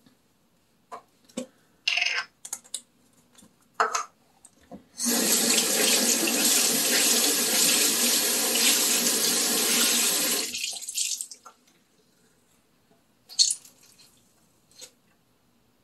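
Bathroom sink tap turned on and left running in a steady rush for about five seconds, then shut off. Small clicks and knocks of things handled on the counter come before and after.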